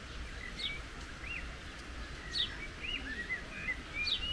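Songbirds calling in the trees: short chirps and looping whistled notes, with a sharp falling call three times, about two seconds apart. These sit over a steady low background noise.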